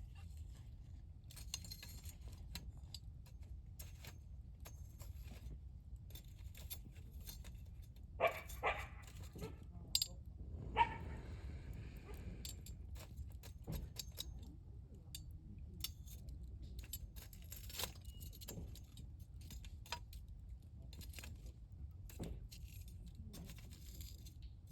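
Wood campfire crackling, with irregular small pops and snaps over a steady low rumble. A few louder sounds stand out between about 8 and 11 seconds in.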